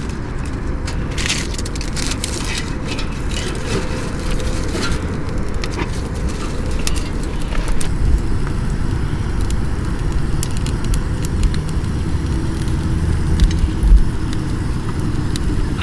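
Firewood crackling and popping in a folding wood stove, with scattered sharp clicks over a steady low rumble.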